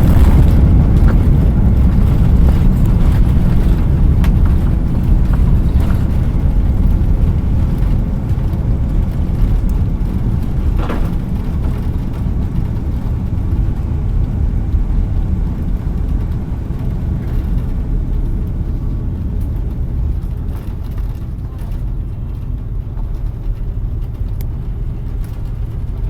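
Airbus A330-300 landing rollout heard from inside the cabin: a loud, low rumble of engines and runway that gradually eases as the aircraft slows. There is a brief clunk about eleven seconds in.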